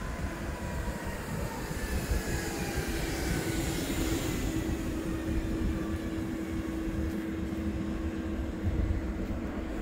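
Newag Impuls 45WE electric multiple unit drawing into the platform and slowing. Its traction whine falls in pitch over the first few seconds, over a steady electric hum from the train.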